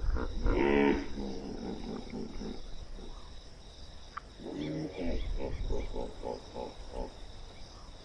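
Deep animal growling and grunting: one strong pitched growl about half a second in, then a run of quick pulsed grunts, about four a second, in the second half.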